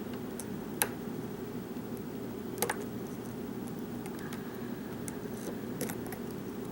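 A few sharp metallic clicks and faint ticks of a lock pick working the pins of a Zing padlock, with the core held in a false set. The clicks are sparse: a loud one about a second in, a quick pair near the middle and another near the end, over a steady low hum.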